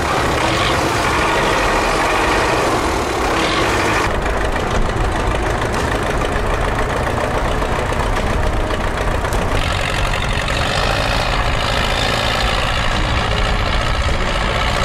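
MTZ-82 tractor's diesel engine running steadily as the tractor works through deep mud. The tone of the engine noise shifts about four seconds in and again near ten seconds.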